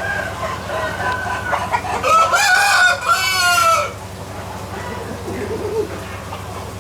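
Chickens clucking and calling, with a rooster crowing loudly about two seconds in, the crow lasting nearly two seconds. A steady low hum runs underneath.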